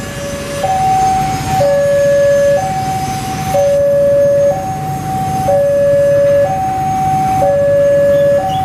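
Railway level-crossing warning alarm sounding a repeating two-tone high-low signal, each tone held about a second. It warns that the gates are closed and a train is about to pass.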